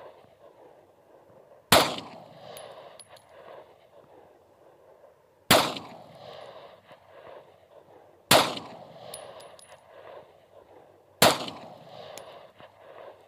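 Glock 19X 9mm pistol firing four single shots, about three seconds apart, each trailing off over about a second across the open range.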